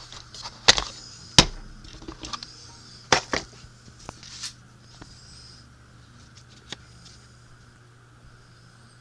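Handling noise of a Milwaukee 25 ft tape measure: a few sharp clicks and knocks, two loud ones in the first second and a half and a pair about three seconds in, then only faint ticks over a low steady hum.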